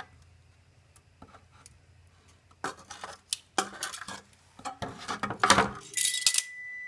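Dishes and cutlery clinking and knocking on a table: a quiet start, then several sharp clinks from about two and a half seconds in, with a louder clatter near the end.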